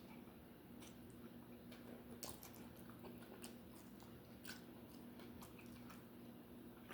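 Faint close-up chewing of a mouthful of cheeseburger, with scattered soft wet mouth clicks over a low steady hum.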